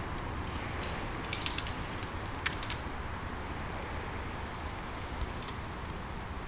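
Scattered sharp clicks of airsoft gunfire, with a quick burst of four or five about a second and a half in and a few single shots after, over a steady low background rumble.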